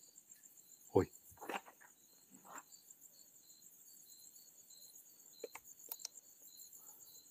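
Crickets chirping steadily in the dark, with a few short knocks about a second and a second and a half in, the first the loudest, and faint clicks near the end.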